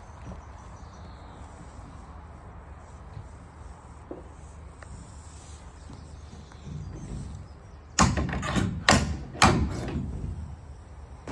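Sharp knocks and clanks from the horse trailer's metal partition and its fittings being handled, three loud ones in quick succession about two-thirds of the way in, over a low steady outdoor background.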